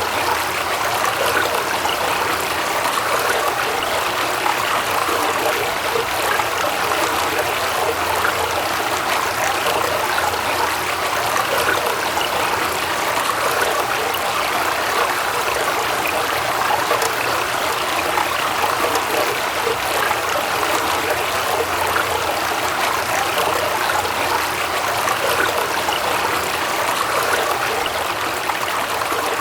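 Waterfall: water rushing and splashing in a steady, unbroken stream.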